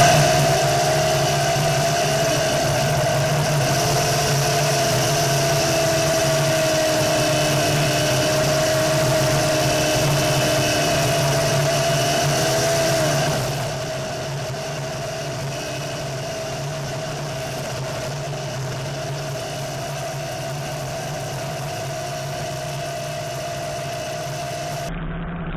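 Home-built off-road buggy's engine running at a steady cruise along a gravel road. Its pitch wavers briefly twice, and the sound drops in level about halfway through.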